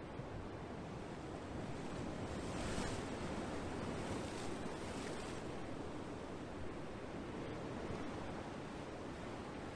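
Ocean waves washing ashore: a steady rush of surf that swells about two seconds in, with a hissing wash in the middle, then eases.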